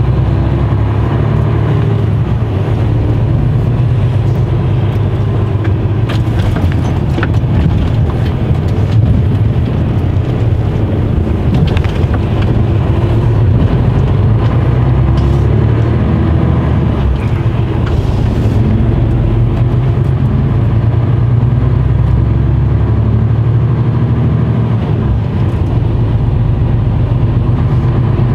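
Mercedes-Benz Actros truck's diesel engine running at low road speed, heard from inside the cab: a steady, loud low drone as the lorry rolls slowly along.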